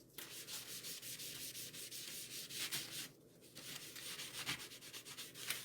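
A paintbrush scrubbing stain onto a wooden board in quick back-and-forth strokes, with a short pause about three seconds in.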